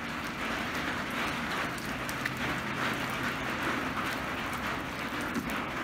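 Heavy rain falling steadily on flooded, puddled ground: an even hiss of rain with fine patter.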